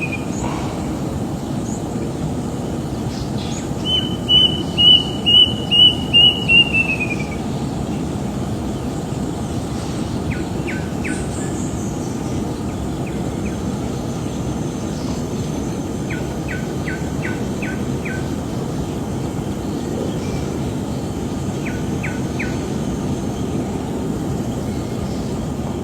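A bird calling a quick run of about eight clear whistled notes, the pitch falling off at the end, over a steady low background rush. Later come a few faint short ticks in small groups.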